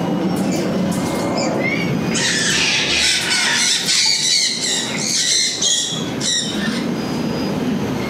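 White cockatoos screeching: a short call about a second and a half in, then a harsh, raspy screech from about two seconds in that lasts some four seconds, with shorter squawks after it.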